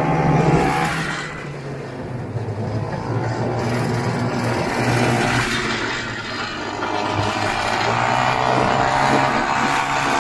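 Single-cylinder two-stroke engine of a 1969 Ski-Doo Olympique 320cc snowmobile running under way on a trail, easing off about a second and a half in and again around six seconds, then picking back up.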